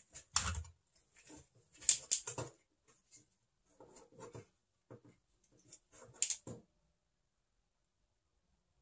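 Irregular small clicks, scrapes and rustles from hands working a wire and its metal connector end. They stop abruptly about six and a half seconds in.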